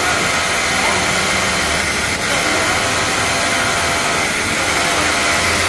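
Industrial overlock (serger) sewing machine running steadily as fabric is fed through it: an even, continuous whirring drone.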